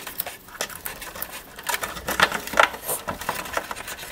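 Irregular small clicks and rustles of computer-fan wires being handled and routed by hand, with a couple of louder clicks a little over two seconds in.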